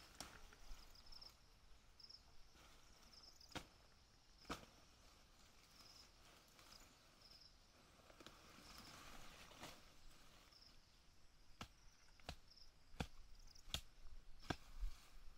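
Faint, scattered sharp chops from a hand tool clearing grass, about nine in all and coming more often near the end. Under them a faint high insect chirp repeats about every two-thirds of a second.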